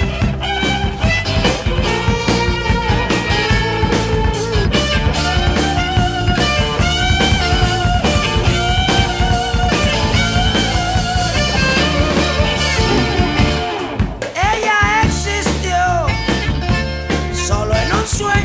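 Rock music with electric guitar over a steady beat.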